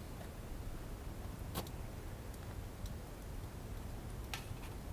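A few light clicks of a metal cup and pot being handled, the two sharpest about a second and a half in and near the end, over a steady low rumble.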